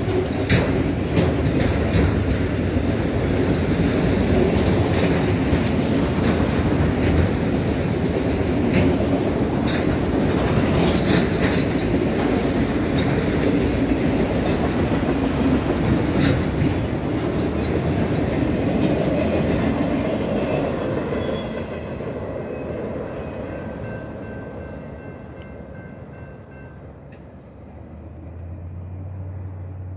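Freight train of loaded autorack cars rolling past, a steady rumble with repeated clicks of the wheels over the rail joints. About two-thirds of the way through, the sound fades away as the end of the train moves off, leaving a few faint high steady tones.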